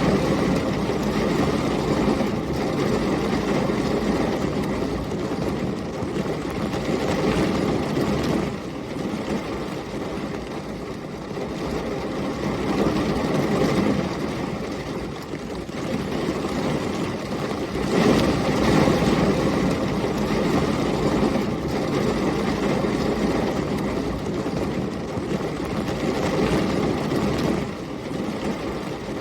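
Heavy rain and storm wind: a dense, steady roar with a low rumble that swells and eases every few seconds as the gusts come and go.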